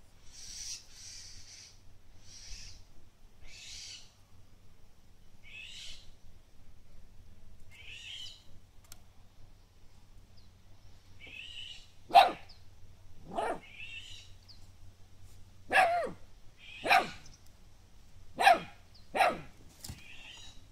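Entlebucher Mountain Dog puppy barking: six short, sharp, high barks in the second half, in pairs and singles, after a spell of fainter high-pitched squeaks.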